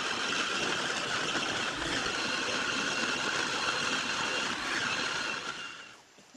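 Electric mini food chopper's motor running steadily while it blends a thick chickpea paste for hummus, labouring because the mixture is very thick. It winds down and stops near the end.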